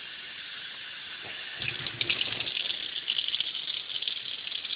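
Kitchen tap running into a measuring cup over a stainless steel sink, water spilling over into the sink. About a second and a half in, the sound gets louder and splashier.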